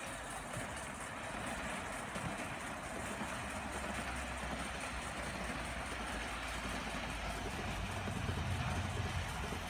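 Live steam model locomotive running, a steady hiss of steam and exhaust with a low rumble underneath.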